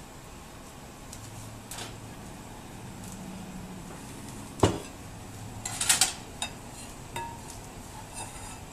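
Kitchenware being handled and set down: a sharp knock about halfway through, a quick flurry of clinks about a second later, then a few light clicks. The clatter is a glass pot lid, a ceramic plate and a saucepan being put down on the stovetop and counter.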